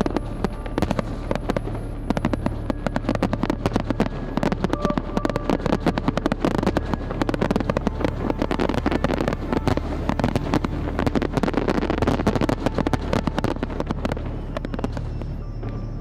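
Aerial firework shells bursting and crackling densely, with many sharp reports overlapping. The crackle is thickest around ten to twelve seconds in.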